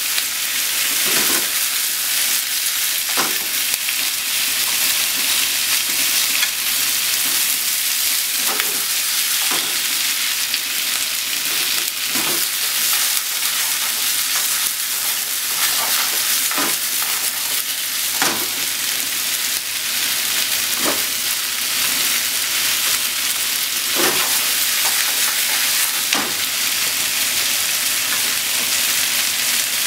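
Chicken and vegetables sizzling in oil in a frying pan while being stir-fried with cooking chopsticks. A steady hiss runs throughout, broken by irregular sharp knocks and scrapes of the chopsticks against the pan every second or few.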